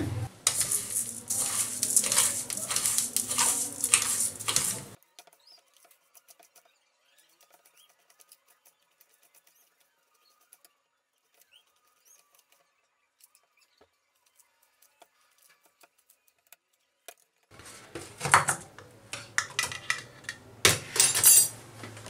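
Steel spoon stirring and scraping pearl millet seeds in a stainless steel pan, the seeds rattling against the metal as they are gently warmed. It goes on for about five seconds, gives way to near silence, and starts again a few seconds before the end.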